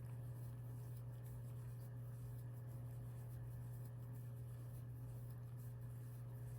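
Steady low electrical hum under faint soft rustling of yarn being worked with a crochet hook.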